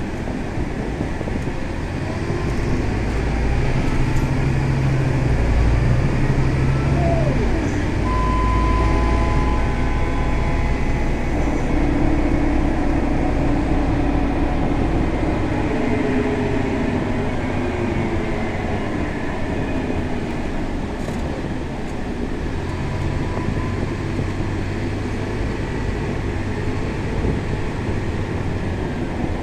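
Scania K320 bus's diesel engine and drivetrain heard from inside the cabin on the move: a steady low rumble that shifts up and down as the bus speeds up and slows, with faint rising and falling whines.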